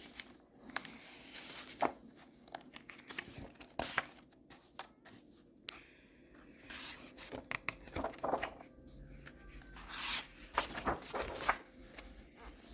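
Pages of a paperback picture book being turned and handled: scattered paper rustles and soft knocks.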